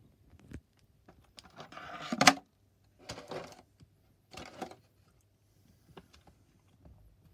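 Plastic body shell of an RC truck being lifted off and handled: a few short rustling, scraping bursts with a sharp knock about two seconds in, and small clicks.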